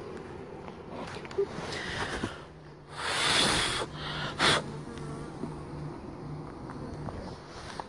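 Honeybees from an opened hive buzzing in a steady low hum, with two loud bursts of rushing noise, one about three seconds in and a shorter one a second later.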